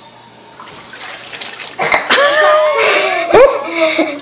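Water sloshing and splashing in a metal tub as a child bobs for apples with her face in the water. About two seconds in, loud excited squeals and shouts from the children join in.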